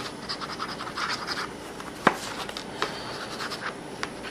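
Medium-point fountain pen nib scratching across a paper card in quick, hard-pressed strokes, with a few sharp taps, the loudest about two seconds in. The nib is still dry: ink from the newly fitted cartridge has not yet reached it.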